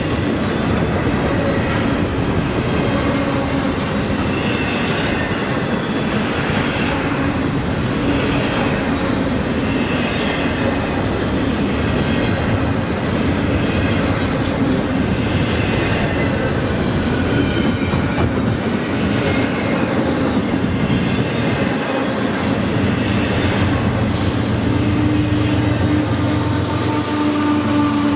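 Double-stack intermodal container train passing close by: steady rumble of railcars and wheels clacking over the rail joints. In the last few seconds a CSX diesel locomotive comes alongside, adding a steady low engine drone.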